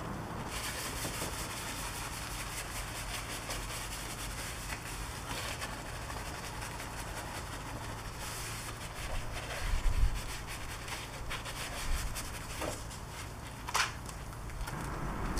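Soft detailing brush scrubbing car-shampoo foam on a vehicle's side step and mud flap: quick wet rubbing strokes. A few dull knocks come about two-thirds of the way through, the loudest near ten seconds in.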